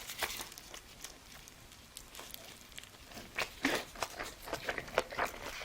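Close-up chewing and mouth smacks of a person eating, with small sharp clicks. It goes quieter for a couple of seconds, then the smacking picks up again in the second half.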